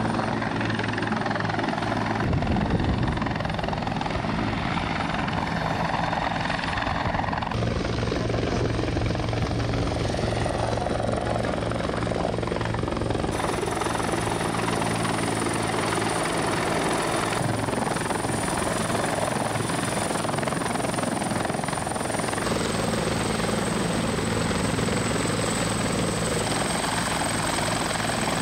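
Rescue helicopter running steadily, its rotor blades beating under a thin high turbine whine. The sound shifts abruptly a few times.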